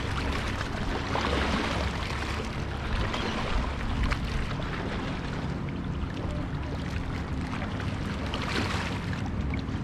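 Steady low drone of a motorboat engine out on the water, over a continuous hiss of wind and water.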